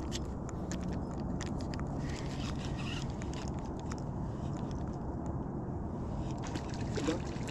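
Daiwa spinning reel being cranked to retrieve a lure, a quiet grinding with small clicks, over a steady low rumble.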